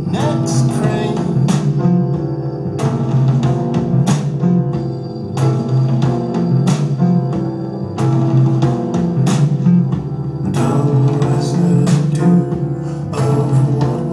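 Music with guitar and drums played back from a cassette on an Alpine AL-80 stereo tape deck.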